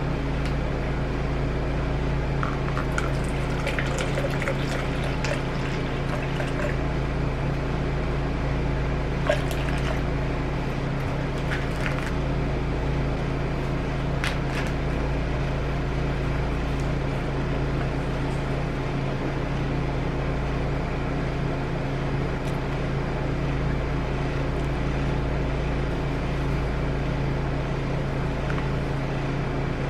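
A steady mechanical hum, with a few light clicks and crinkles of a plastic bag being handled.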